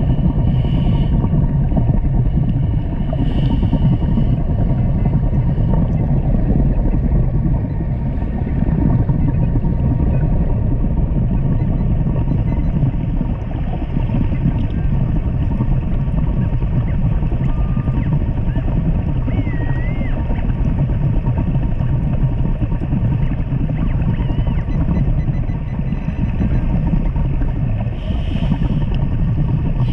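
Steady low underwater rumble picked up by a camera in a waterproof housing, with a few short faint beeps about a second in, a few seconds in, and near the end.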